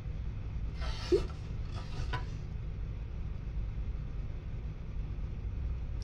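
Steady low background rumble, with one short sound about a second in and a fainter one shortly after.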